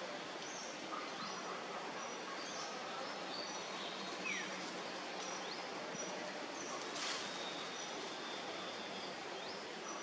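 Outdoor bird ambience: a steady hiss with brief high bird chirps and whistles scattered throughout, a short falling whistle about four seconds in, and a single sharp tap about seven seconds in.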